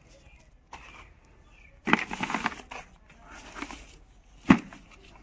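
Plastic packaging crinkling and rustling as items are handled, in a few bursts, loudest about two seconds in, then a single sharp knock near the end.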